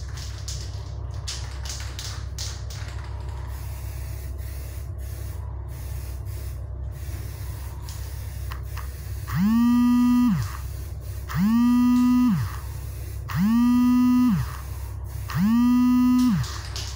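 An aerosol spray can being shaken, its mixing ball clicking rapidly for the first few seconds, over a steady low hum. From about nine seconds in, a loud electric buzz comes five times, about every two seconds: each one spins up, holds steady for about a second and winds down.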